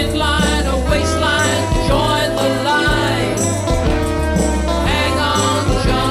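A song with a band: a singer's wavering voice over low bass notes and a steady tick of cymbals.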